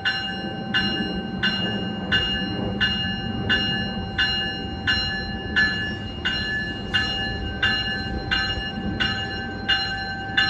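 Diesel passenger locomotive's bell ringing steadily as the train departs, about three strokes every two seconds, over the low rumble of the locomotive's engine.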